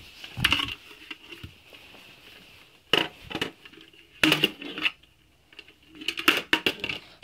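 Handling noise: irregular clusters of knocks, clicks and rubs as toys and the camera are handled, over a faint steady high tone.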